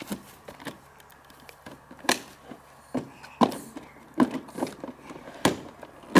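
A series of sharp plastic knocks and clicks from a ride-on toy car as its side door is swung open and a child climbs into the seat, the clearer knocks coming from about two seconds in.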